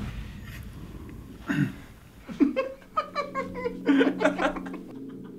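A man laughing: a couple of drawn-in gliding sounds, then about two seconds in a run of quick, loud laughter bursts. A low boom dies away at the very start, and a low steady hum runs under the laughter.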